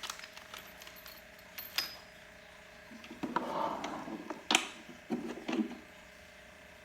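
Clicks and rattles of small parts being handled as a washer and retaining pin go onto a pressure washer's wheel axle: a sharp click about two seconds in, a short rustle, then a louder click and a few smaller ones.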